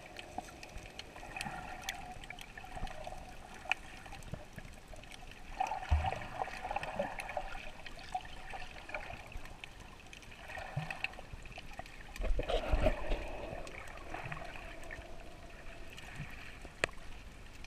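Water heard through a GoPro held underwater while snorkeling: muffled gurgling and sloshing with scattered faint clicks. It swells louder about six seconds in and again around twelve to thirteen seconds.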